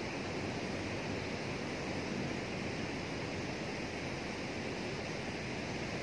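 Fast water rushing steadily through a canal sluice gate, a constant churning noise.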